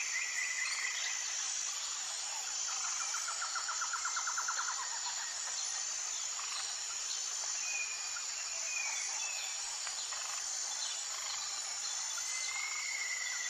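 Outdoor nature ambience: a steady high-pitched insect drone, with small birds chirping and trilling now and then, including a rapid trill about three seconds in.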